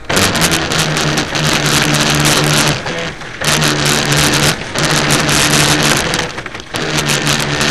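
Radio-controlled speed boat's engine running hard, a steady buzzing note with a loud hiss over it. The note drops out briefly about three times as the throttle is eased and opened again.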